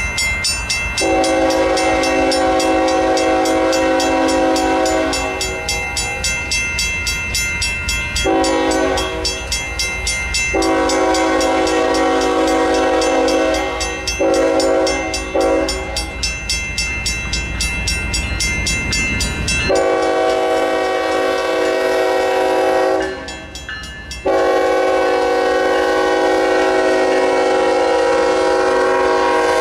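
Railroad crossing bell ringing steadily while an approaching Union Pacific freight locomotive sounds its horn in a series of long blasts with short breaks, warning for the grade crossing. The horn cuts out briefly near the end, then sounds again as the locomotive reaches the crossing.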